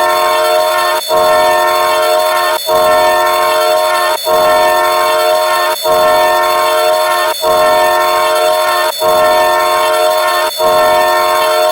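Train horn sounding a chord of several steady tones, repeated in blasts about a second and a half long with short breaks between them.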